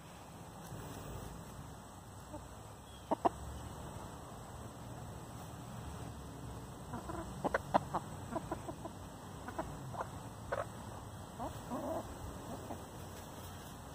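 Backyard hens clucking while they dust bathe together: a couple of short clucks about three seconds in, then a run of short, scattered clucks through the second half.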